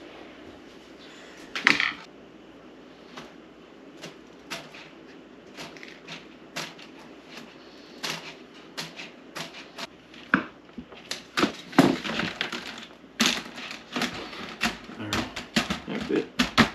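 Irregular clicks, clacks and rattles of plastic incubator parts being handled: a flexible plastic mesh floor sheet worked by hand and pressed down onto a yellow plastic egg tray. There is a sharp clack just under two seconds in, and the clicking grows denser in the second half.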